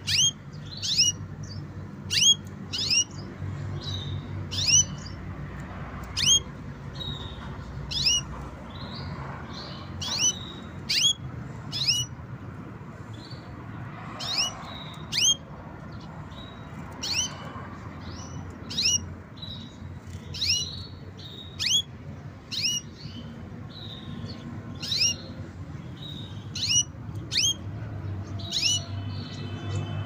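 White male canary giving short, sharp, high chirps, one or two a second and often in pairs.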